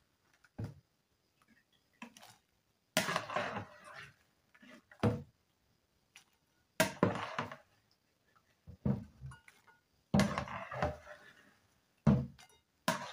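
A metal spoon knocking and scraping in a plastic bowl and against a plate as wet small fish are scooped out and tipped onto the plate: short separate thunks and clinks every second or two.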